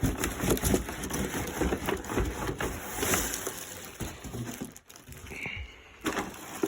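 Cardboard box and packaging crackling, rustling and scraping as the vacuum's main unit is pulled out, busiest over the first four seconds and quieter after.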